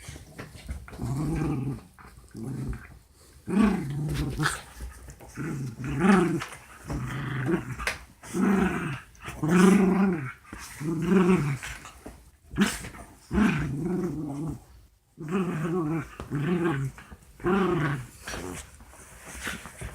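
Dogs growling in play-fighting: a long series of short growls, one after another, with brief gaps between them.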